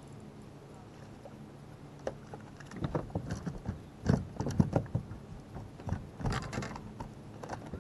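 A small hooked fish being landed at the side of a fishing boat: a run of irregular splashes, knocks and thumps against the boat, loudest about four seconds in, over a faint low hum.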